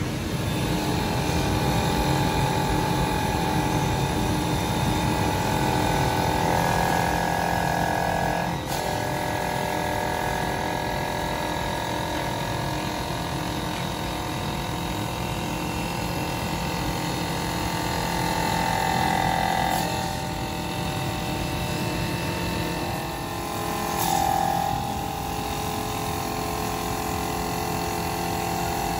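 CNC wood lathe running and turning a spinning wooden spindle blank, a steady high whine that dips and shifts briefly a few times.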